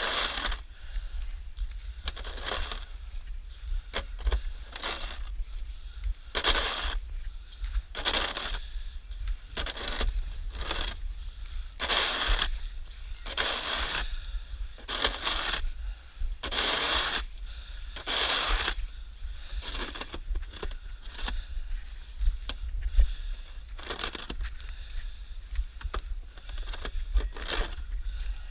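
Snow shovel scraping and crunching through snow in repeated strokes, about one every second or two, over a steady low rumble.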